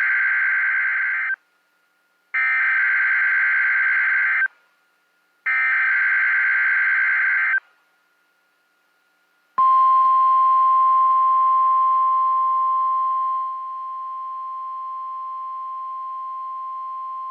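Emergency Alert System SAME header bursts: three shrill, buzzy digital data screeches about two seconds each, with short gaps. They are followed by the NOAA Weather Radio 1050 Hz warning alarm tone, one steady high-pitched tone that starts about halfway through and drops in loudness a few seconds later. The sequence signals an incoming National Weather Service alert, here a tornado watch.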